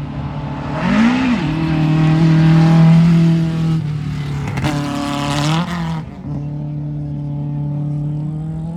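Rally car engine under hard acceleration, its pitch climbing about a second in, holding high, then climbing again around five seconds. Near six seconds it drops to a steadier, quieter note.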